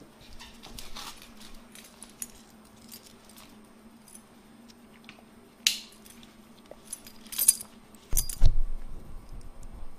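A machined aluminum dog tag on its split ring jingling on a dog's collar as the dog walks about, in a few scattered short jingles, the sharpest about six seconds in. Near the end come a few low thumps, the loudest sounds, as the dog bumps against the camera, over a steady low hum.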